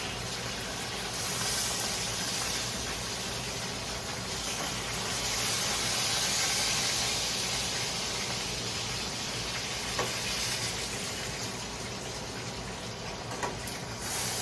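Food sizzling in hot oil in a pan, a steady hiss, with a few light clicks near the end.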